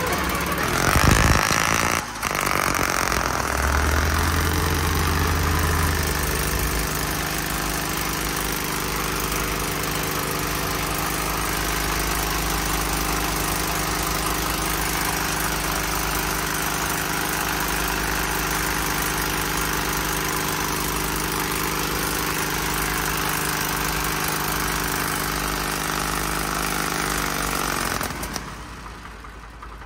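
Old Lorain cable shovel's diesel engine running: uneven for the first few seconds, then settling to a steady idle. Near the end it is shut off and winds down to a stop.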